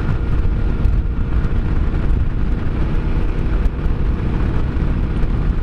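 Yamaha Ténéré 700's parallel-twin engine running steadily while riding along, under a dense haze of road and wind noise.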